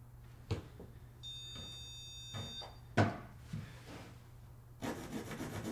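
An electronic stud finder beeps with one steady high tone for about a second and a half as it detects a floor joist under the plywood subfloor. Soft knocks of the tool and hand on the plywood come before and after, the loudest about three seconds in, and a pencil scratches a mark on the subfloor near the end.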